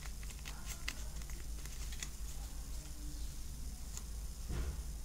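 Bicycle playing cards being handled: faint, quick clicks of card edges as a fanned deck is flicked through, then a soft knock near the end as the deck is gathered. A low steady hum lies underneath.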